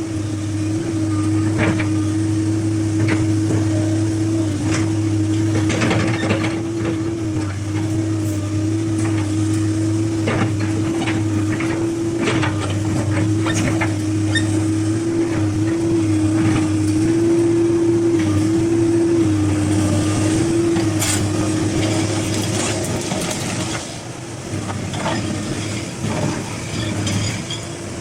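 Sany SY215C excavator running: a steady engine drone with a hum that wavers slightly in pitch, and scattered clanks and knocks throughout. It drops a little in loudness about 24 seconds in.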